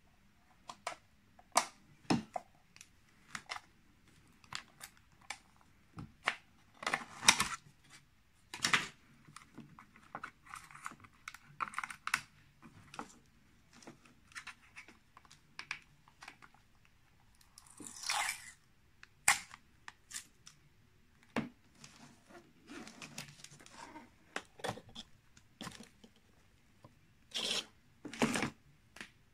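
Handling noises from a Sherline lathe's motor speed-control box being taken apart: scattered sharp clicks and knocks of the housing, with short rustles and the tearing of a paper strip being peeled off.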